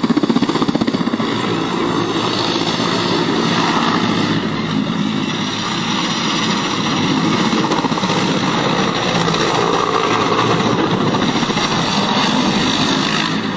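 A steady, loud running engine with a fast, even pulsing.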